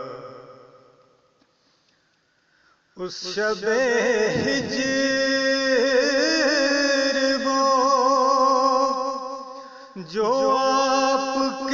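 A man's voice singing an Urdu devotional naat in long, ornamented held notes. The singing begins sharply about three seconds in, after the previous phrase fades away to near silence. It breaks off briefly near the end and starts again.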